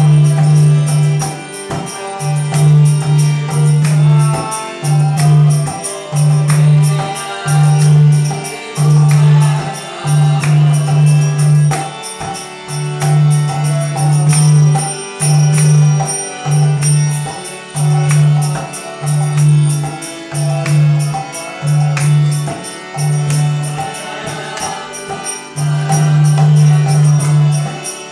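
A group singing a devotional guru-puja hymn together, with jingling percussion keeping a steady beat.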